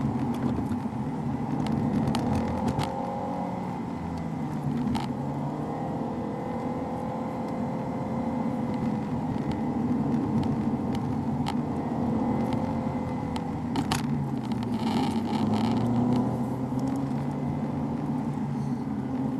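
Volkswagen Lupo GTI's 1.6-litre four-cylinder engine heard from inside the cabin over steady road and tyre noise, its revs rising and falling as the car drives. A few short clicks or knocks along the way.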